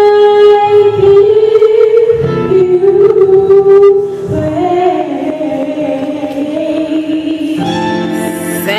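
A young woman singing a gospel song solo into a microphone, holding long notes and moving down to a lower phrase about halfway through.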